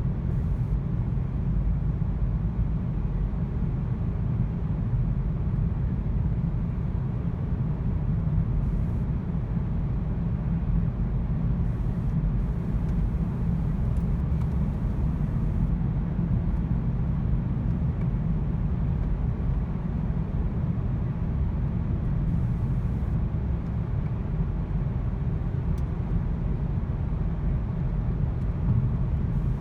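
Volkswagen car driving, its engine and road noise making a steady low drone; the engine has a misfire.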